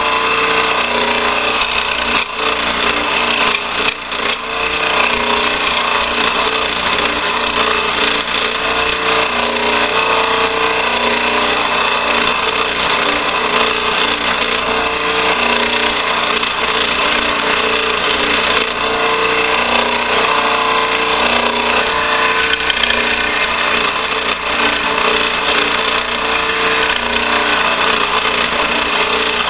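Scroll saw running steadily and cutting through a small hardboard disc, with a constant tone from the machine beneath the cutting noise.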